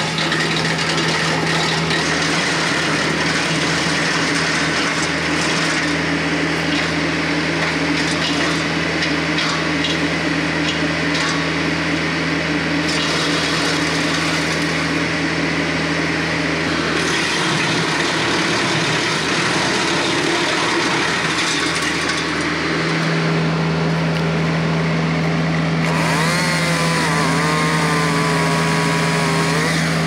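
Compact tractor engine driving a PTO wood chipper, running with a steady drone and hum. Near the end a chainsaw engine starts up alongside it, its pitch wavering.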